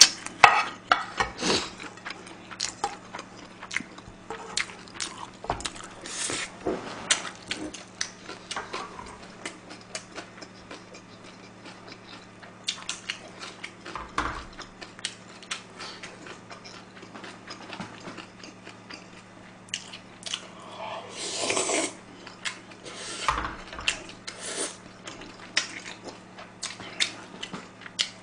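Close-miked eating: chewing, with many short clicks and taps of chopsticks, a ladle and a spoon against metal pans and a small bowl as soft tofu stew is scooped up, over a faint steady low hum.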